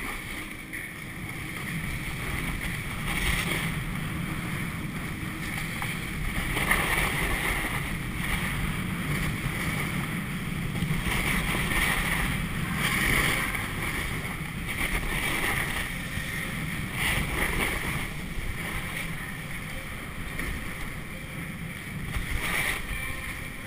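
Wind rushing over the microphone of a camera worn while sliding downhill on snow, with the hiss and scrape of edges on packed snow swelling again and again as the turns come.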